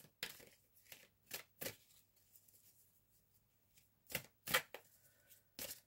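Tarot or oracle cards being handled: a series of short, soft card swishes and taps, in two clusters with a quiet gap of about two seconds between them.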